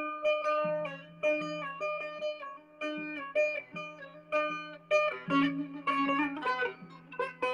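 Instrumental passage on a plucked string instrument: a quick melody of picked notes over a steady low note.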